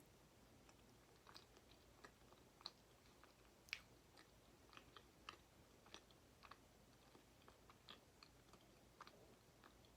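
Faint chewing of cheese fries: soft, irregular wet mouth clicks, with a somewhat louder one near the beginning and another a little before the middle.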